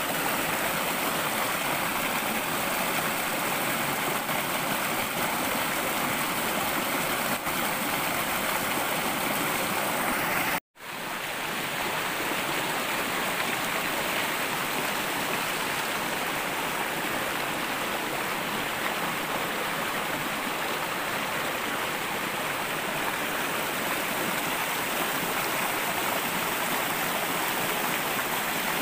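Forest stream rushing over rocks: a steady, even hiss of running water. It cuts out for an instant about ten seconds in and comes straight back.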